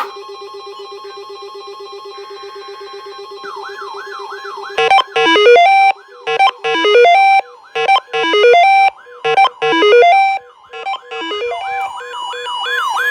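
Electronic alert tones. A steady pulsing tone comes first. A whooping siren sound then starts, sweeping up and down about two or three times a second. From about five seconds in, six loud bursts of stepped beeps play over the whoops.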